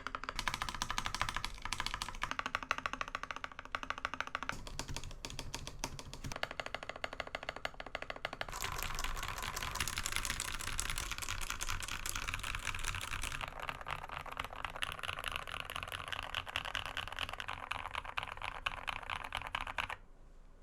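Typing on an RK61 61-key mechanical keyboard with lubed Cherry MX Red linear switches, PBT keycaps and foam and tape mods: a fast, continuous clatter of keystrokes that stops just before the end.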